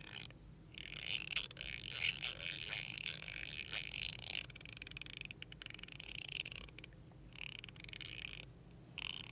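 Metilis Hertz stainless steel and copper haptic thorn coin being worked by hand, giving rapid runs of fine, high metallic clicks. A long run is followed by two shorter ones, with brief pauses between them.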